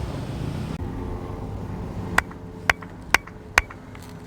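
Four sharp hand claps about half a second apart, made standing in a clapping circle, a spot meant to throw claps back.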